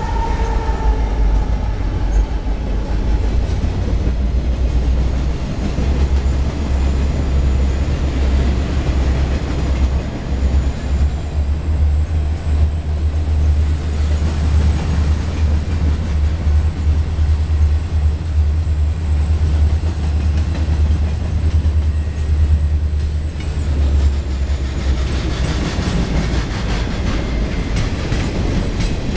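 Union Pacific freight train passing close by: the diesel locomotives' drone falls in pitch as the last of them goes by at the start, then a steady low rumble of the freight cars rolling past, with wheel clatter growing near the end.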